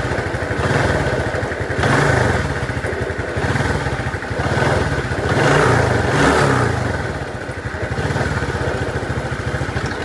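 Underbone motorcycle engine running, swelling and easing a few times as the gear lever is pressed, with the bad engine noise that sounds like it is about to fall apart when going into gear; the owner suspects a broken bearing or a failing gearset inside the engine.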